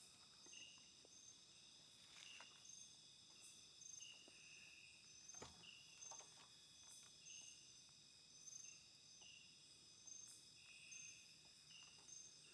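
Faint night-time insect chorus: a steady high-pitched trilling of crickets, with short chirps repeating about once a second. A few faint knocks stand out a couple of seconds in and again around the middle.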